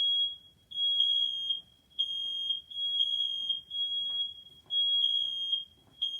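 Smoke alarm sounding its shrill, high-pitched alarm tone in repeated pulses about a second apart with short gaps between them, set off by its test button.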